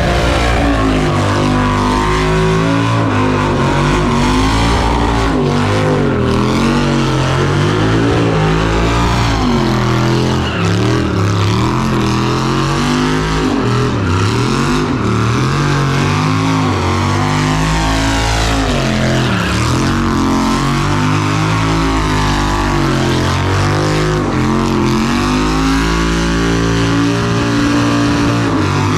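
Texas Speed 416-cubic-inch LS3 V8 running under Holley EFI, its pitch rising and falling again and again as it is revved and driven.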